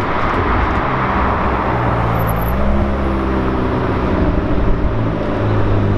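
McLaren 720S's twin-turbo V8 running as the car drives past at low speed, a steady, low engine note.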